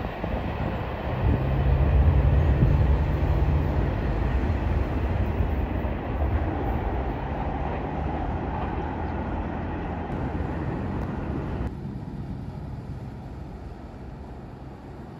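A train passing with diesel locomotive engine drone, loudest a second or two in. The rumble of the rolling cars follows and slowly fades away.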